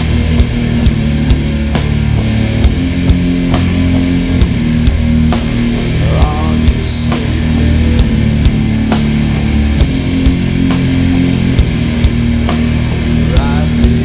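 Loud heavy rock song with guitar and drums keeping a steady beat of about two hits a second.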